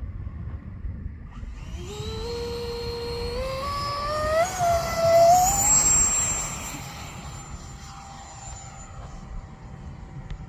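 Electric ducted fan of a Freewing Zeus RC jet spooling up, a whine that rises in pitch in steps as the throttle is opened for the takeoff run. It is loudest about five seconds in, then thins to a high steady whine that fades as the jet moves away, with wind rumble on the microphone underneath.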